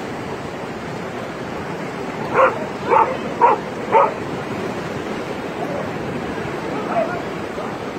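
A dog barking four times in quick succession, about half a second apart, over the steady wash of surf.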